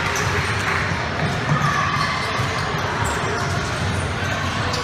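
Basketball bouncing on a hardwood gym court during play, over a steady wash of indistinct spectator voices.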